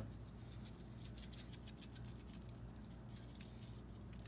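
Faint, gritty scratching of a hand rubbing a dry seasoning rub into raw pork loin, over a low steady hum.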